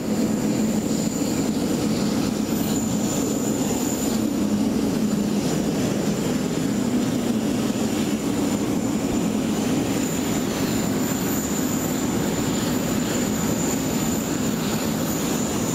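Steady drone of jet turbine noise from aircraft on an airport ramp, with a thin high whine above it.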